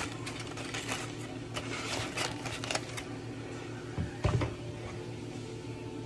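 Handling noise from a phone rubbing and scraping against a sweatshirt: a quick run of scratchy clicks for the first few seconds, then a couple of dull bumps a little after four seconds, over a steady low hum.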